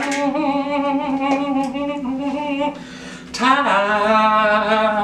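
A man's voice singing two long, held nonsense syllables, "wung" and then "ta". There is a short break about three seconds in, and the second note slides up as it starts.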